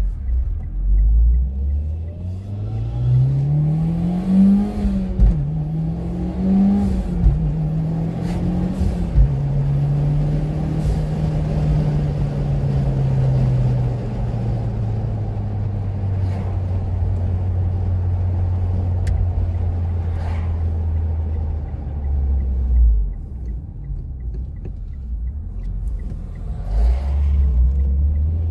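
2015 Mitsubishi Lancer Evolution X GSR's turbocharged four-cylinder engine accelerating through two gear changes, its note rising and falling back at each shift. It then settles into a steady cruise, slowly falls off, and picks up again near the end.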